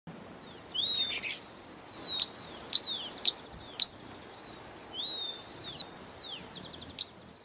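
Hummingbird calling: high, thin squeaky chirps and quick falling notes, with a run of four sharp chips about half a second apart partway through and another near the end.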